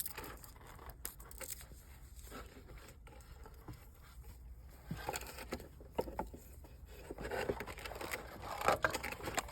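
Handling sounds: rustling and scraping with scattered small clicks and taps as the keyboard and its cord are moved about, louder taps in the second half.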